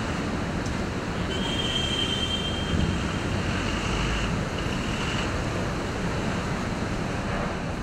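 Busy city street ambience: a steady rumble and hiss of traffic. A high, steady squeal starts a little over a second in and stops around five seconds in, with one short break.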